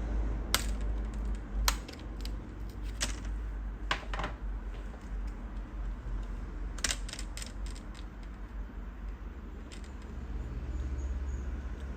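Scattered sharp clicks and light taps of a laptop's plastic and metal parts being handled and worked on, with a quick run of clicks about seven seconds in, over a steady low hum.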